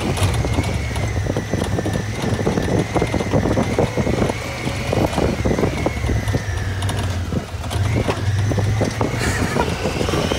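Honda Pioneer 1000 UTV's parallel-twin engine running while under way, heard from inside the cab, with a steady whine that wavers slightly in pitch. Many knocks and rattles come from the machine as it drives over rough ground.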